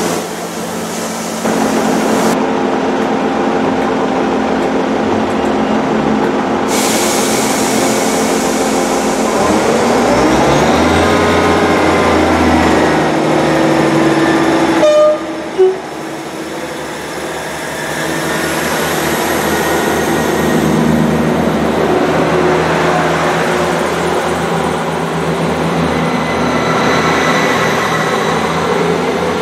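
Great Western Railway diesel multiple unit running at the platform, its engines revving up with a rising pitch as it pulls away, then running steadily as the carriages roll past. A brief horn toot sounds about halfway through.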